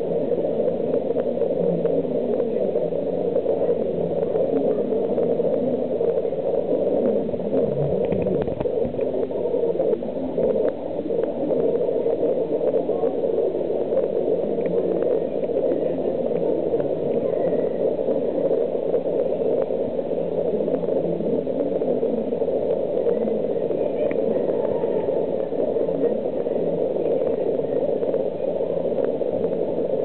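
Steady hum of an aquarium hall, from the tanks' water circulation, with faint voices in the background.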